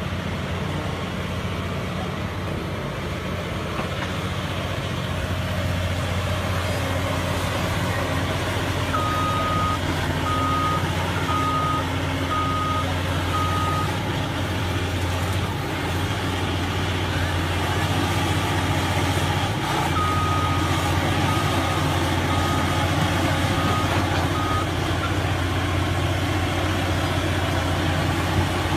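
A heavy vehicle's engine running with a steady low drone, while a reversing alarm beeps about once a second: a run of five beeps about a third of the way in, and a fainter run of beeps past the middle.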